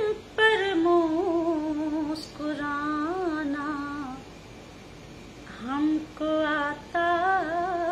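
A woman's voice carrying a slow, melodic line in long held, wavering notes, in the sung style of mushaira recitation. There is a pause of about a second midway.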